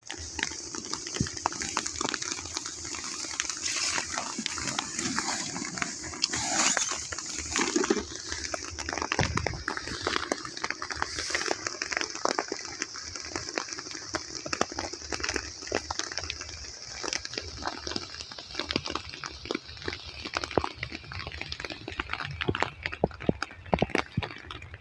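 Heavy rain falling, with a steady hiss and many separate drops striking nearby surfaces.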